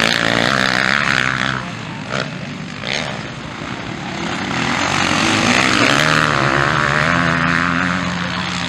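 Motocross dirt bike engines revving hard as riders accelerate, the pitch rising and falling with the throttle; loud at first, easing off after about a second and a half, then building again from about five seconds in.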